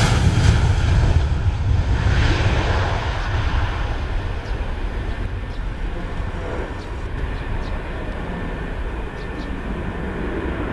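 Boeing 737 jet airliner at take-off power: a loud, low engine rumble that fades gradually as the aircraft lifts off and climbs away.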